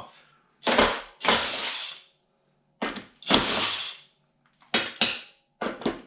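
Cordless impact driver with a 5/8 socket, run in repeated short bursts of under a second each, spinning the nuts off the carriage bolts that hold a John Deere mower-deck spindle.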